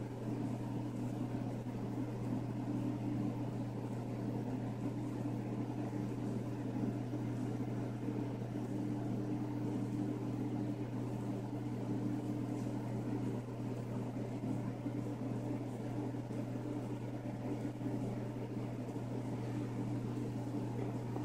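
Small motor running steadily with an unchanging low hum.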